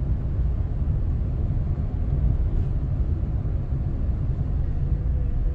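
Steady low rumble of a moving car heard from inside the cabin: road and engine noise while driving.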